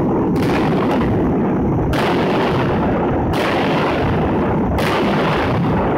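Indoor aerial fireworks bursting under a stadium dome: four sharp bangs about a second and a half apart, each ringing on in the dome's echo, over a steady din.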